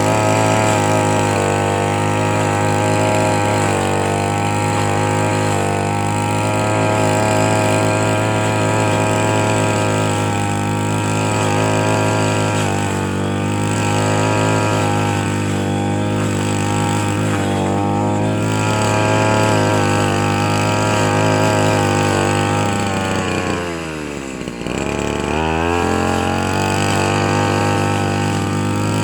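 Engine running at a steady speed with an even tone. Late on, it briefly drops in speed and picks back up.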